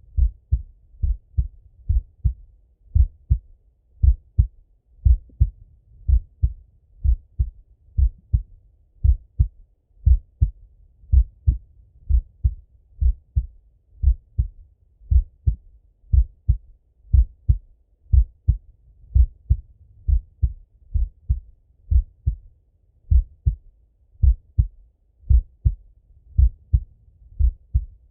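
Slow, relaxed male heartbeat heard through a Littmann stethoscope: a steady lub-dub of paired low thumps, about one beat a second.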